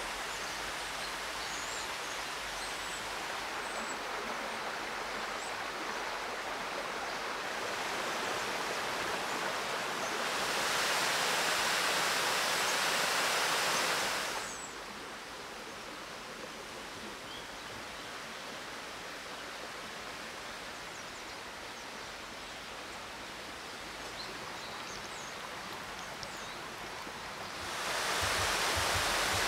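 Rushing water of a forest stream and small waterfall, a steady hiss that swells louder for about four seconds from ten seconds in, and again near the end.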